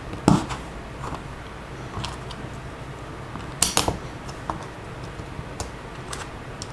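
Scattered clicks and knocks of plastic Lego bricks being handled and pressed together, the sharpest a few near the start and a cluster a little past halfway, over a faint steady low hum.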